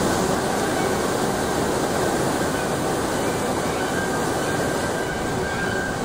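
Rhine Falls, a large river waterfall, rushing: a heavy, steady wash of falling and churning water without a break.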